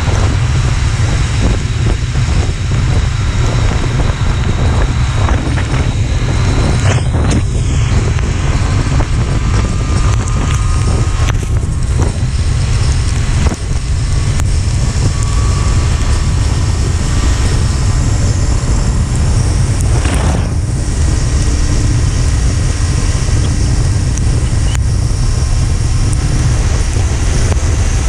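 Wind buffeting the microphone of a moving motorcycle, a loud steady rumble over road and traffic noise.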